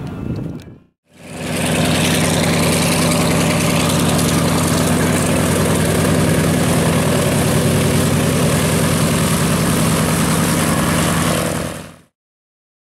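A Douglas DC-3's twin radial piston engines running steadily at idle, with a low, even drone. It starts suddenly about a second in and cuts off just before the end.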